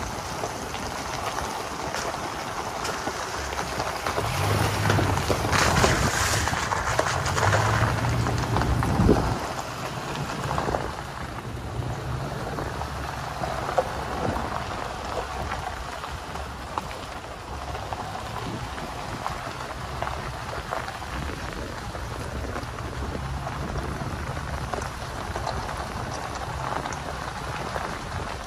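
Vehicle driving on a gravel road: tyres crunching and crackling over the gravel, with the engine running underneath. It gets louder for a few seconds about a quarter of the way in, then settles back.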